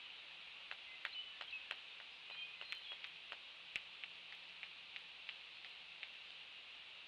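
Scattered sharp clicks, a few a second and uneven, over a steady high hiss, with a few brief high chirps in the first three seconds.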